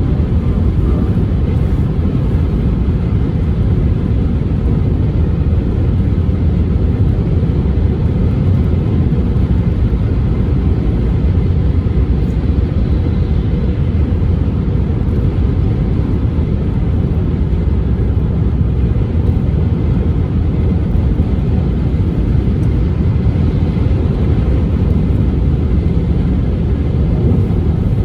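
Car driving along a road: a steady low rumble of engine and tyre noise, unchanging throughout.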